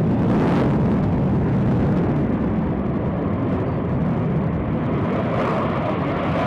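F-15E Strike Eagle's twin turbofan engines at full power on its takeoff run and lift-off: a loud, steady jet roar, heavy in the low end, turning brighter and hissier about five seconds in.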